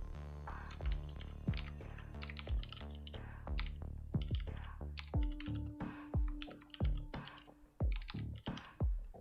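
Computer keyboard typing in quick, uneven runs of keystrokes over background music with a steady beat.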